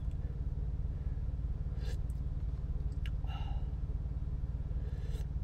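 Steady low engine hum of an idling semi-truck, heard inside its sleeper cab. A few short, faint eating noises from spoon and mouth come about two and three seconds in.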